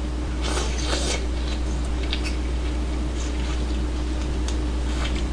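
Wet slurping and sucking while eating raw soy-sauce-marinated crab, in a few short bursts: the longest about half a second in, more around two and three seconds, and one near the end. A steady low hum runs underneath.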